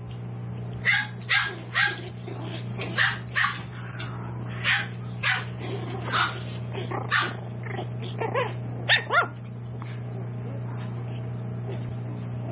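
Seven-week-old tiny toy poodle puppies yipping and barking at play: a quick series of about a dozen short, high barks that stops about three-quarters of the way through. A steady low hum runs underneath.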